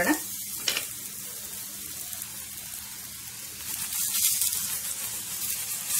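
Paratha sizzling on a hot tawa, the sizzle growing louder about two-thirds of the way through as oil and ghee are spooned onto it and spread. A single light click about a second in.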